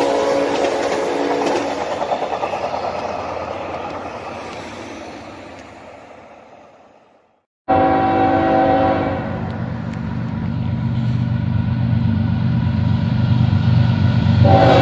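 Train horn sounding a chord over the rumble of a passing train, then fading away to silence. About halfway through, sound cuts straight back in with another horn blast and a low steady locomotive drone, and the horn sounds again near the end.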